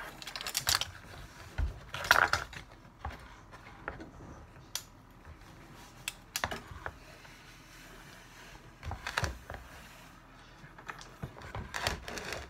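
Kitchen utensils tapping and scraping in a plastic mixing bowl of pie-crust dough: scattered light clicks and knocks with pauses between, the loudest about two seconds in.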